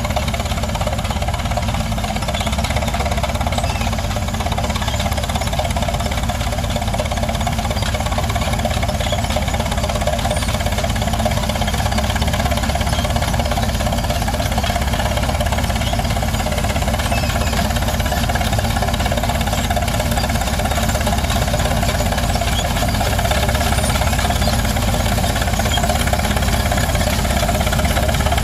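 Antique Holt crawler tractor's engine running steadily under load as it pulls an eight-bottom plow, growing slightly louder as it approaches.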